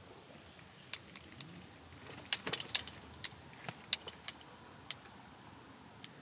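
A scatter of sharp, light clicks and taps, about a dozen, clustered between one and five seconds in and busiest around the middle, over faint outdoor background.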